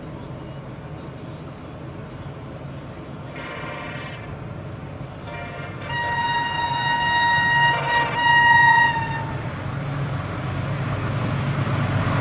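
AGE-30 diesel locomotive approaching at speed and sounding its horn: a short blast about three seconds in, another about five seconds in that runs into a long blast of about three seconds. Under it is a steady low engine drone, and the train's noise swells near the end as it draws close.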